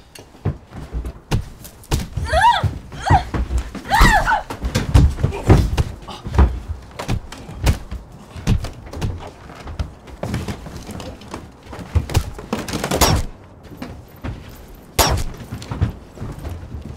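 Repeated dull thuds and knocks of a fight in a small room, blows landing and bodies hitting the floor. A man gives a few strained cries a couple of seconds in, and there is one last heavy thud near the end.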